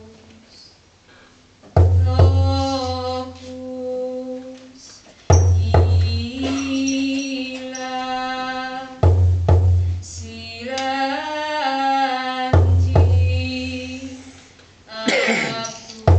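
Slow chant sung in long held notes, with a deep drum struck about every three and a half seconds.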